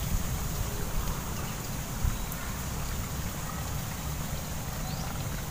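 Outdoor riverbank ambience: wind rumbling on the microphone over a steady high hiss, with a few faint short chirps and one brief knock about two seconds in.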